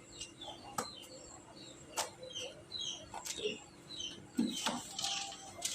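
Small birds chirping faintly in the background, with a few sharp clicks and knocks of objects being handled.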